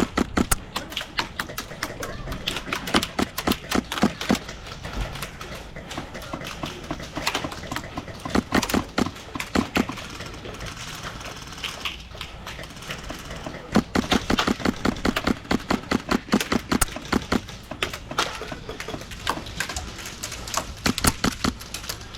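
Airsoft guns firing several bursts of rapid automatic shots, each volley a quick run of sharp clicks.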